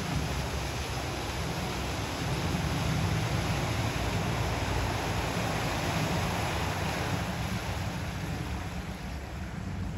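Car wading slowly through deep floodwater: a steady wash of water pushed ahead of it, over a low rumble, swelling a little midway as it comes nearer.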